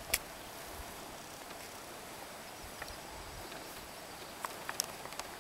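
Steady wash of wind and lapping water around a canoe on a choppy lake, with a sharp knock about a quarter second in and a few quick clicks near the end.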